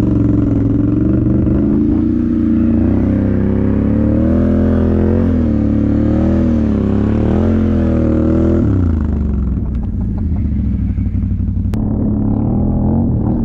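Can-Am Renegade 1000 XXC's V-twin engine running under throttle, its pitch rising and falling as it is revved again and again while towing a snow tube, then dropping away about nine seconds in to a lower, more distant drone.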